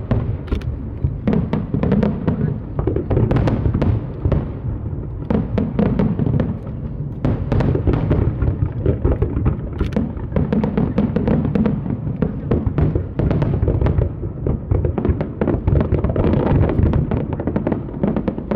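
Aerial fireworks shells bursting in a dense, nearly continuous barrage of overlapping bangs and crackles.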